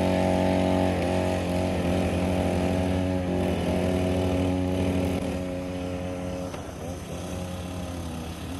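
Pocket bike engines running at high, steady revs, easing off a little after about five seconds.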